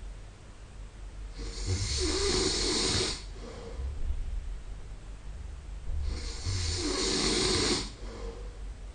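A man snoring in his sleep: two loud snores, each about a second and a half long and some four and a half seconds apart, with quieter breathing between.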